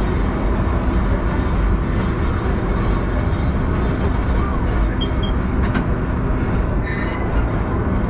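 Ride train rolling along its track: a steady low rumble of wheels and running gear, with a few short high squeaks about five and seven seconds in.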